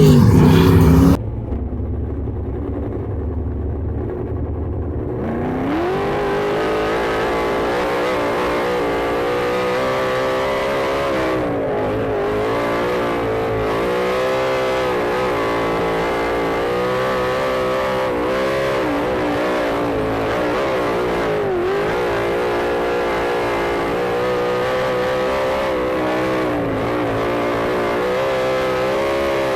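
Sprint car engine running at racing speed, its revs dipping and climbing again every few seconds. An abrupt cut about a second in gives way to a lower rumble before the engine note builds up again.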